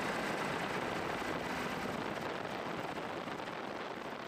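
Steady rushing noise of a helicopter in flight, with no clear rhythm, slowly fading toward the end.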